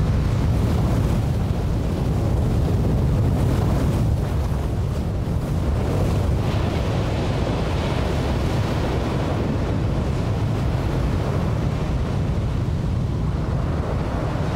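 Strong wind on the microphone over breaking ocean surf: a steady, low rushing noise.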